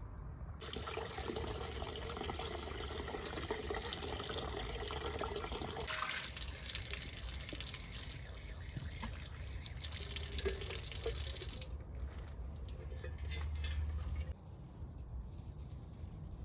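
Running water splashing steadily, as from a tap, during washing. It starts just after the beginning and cuts off abruptly about two seconds before the end.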